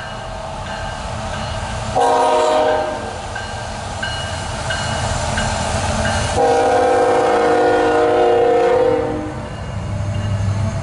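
Diesel locomotive air horn on a loaded CSX coal train sounding the grade-crossing signal: a short blast about two seconds in, then a long blast from about six to nine seconds, over the rumble of the train. A crossing signal bell dings steadily underneath, and the locomotive's rumble grows as it reaches the crossing near the end.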